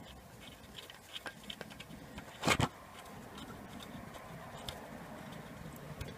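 Small metallic ticks and scrapes as the ABS sensor's fixing bolt is turned in by hand into its threaded hole, with one short, louder double knock about two and a half seconds in.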